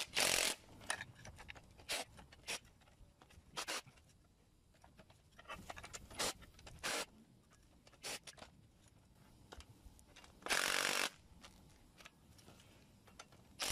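Coil spring compressor being tightened on a car's rear strut spring: scattered short scraping and clicking noises from the tool working, with one longer, louder burst about ten and a half seconds in.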